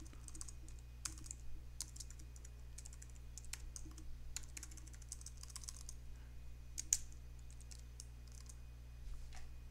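Slow, irregular keystrokes on a computer keyboard, a few taps at a time with pauses, with one sharper tap about seven seconds in.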